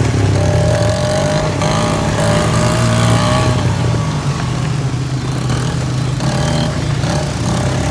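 ATV engine running steadily under way, with a thin whine that wavers slightly in pitch over the first few seconds.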